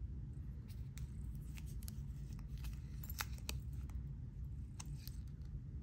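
Soft scattered clicks and plastic crinkles from handling a plastic-wrapped Casio G-Shock GulfMaster watch and pressing its buttons, over a low steady hum.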